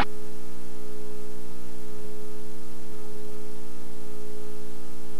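Steady electrical hum made of several fixed tones over a faint hiss, at an even level, from a VHS tape transfer running through a blank stretch between recordings. It starts abruptly as the home-video sound cuts out.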